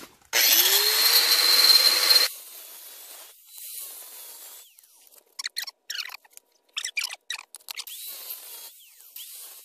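Electric angle grinder spinning up and cutting into an earthenware jar lid. The loud, gritty cut lasts about two seconds, with a steady high whine over it. It then drops to a quieter scraping, broken by short, sharp bursts of cutting in the second half.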